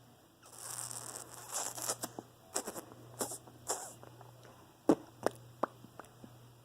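A person making weird mouth noises: a crackly, spitting hiss for about a second and a half, then a run of scattered clicks ending in about five sharp clicks, the loudest about five seconds in.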